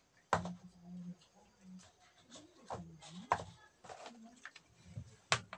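Soft children's voices murmuring, unclear as words, with a few sharp clicks, the loudest about three and five seconds in.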